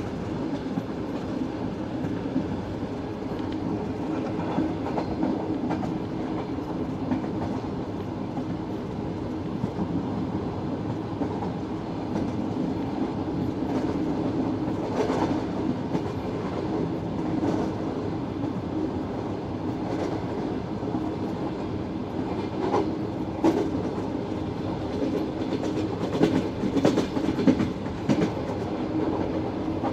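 Passenger train coaches running along the track at speed, heard from an open window: a steady rumble of wheels on rail, with scattered clickety-clack knocks over rail joints that come more often and louder in the last several seconds.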